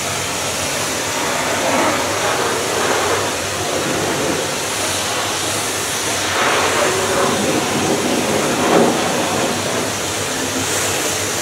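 Pressure washer spraying water against a vehicle's windows and bodywork: a steady, even hiss of high-pressure spray.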